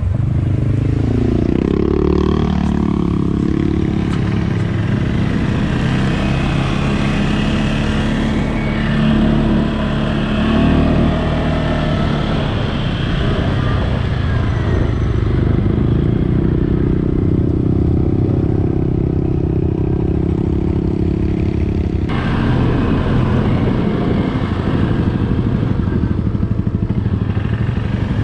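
CFMOTO ATV engine running under way, its pitch rising as it accelerates in the first few seconds, then holding and shifting with the throttle.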